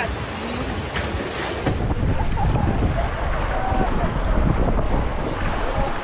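Rushing river water around a raft, with wind buffeting the microphone as a heavy low rumble. Faint voices come through the noise.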